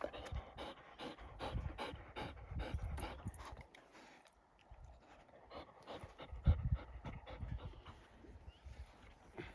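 A dog panting quickly, about three breaths a second, loudest in the first few seconds and fainter after that, with a low rumble about six and a half seconds in.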